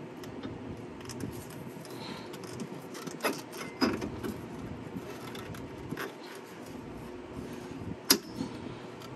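Metal clinks and knocks as the lower end of a new rear strut is pushed and worked onto its mounting stud. There are a few separate clicks, with the sharpest knock near the end.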